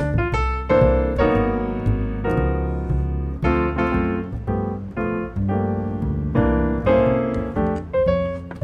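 Background piano music: a steady run of struck notes and chords over a bass line.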